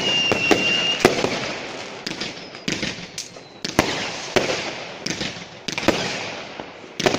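Fireworks going off: an irregular run of sharp bangs and reports, roughly one or two a second, each trailing off into an echo. A high, slightly falling whistle from a firework fades out about a second in.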